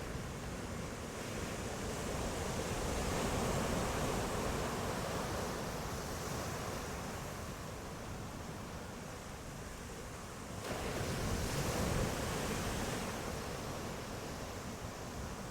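Ocean waves breaking and washing on the shore, in two swells: one building for the first few seconds and a sharper one surging in at about two-thirds of the way through, with a little wind.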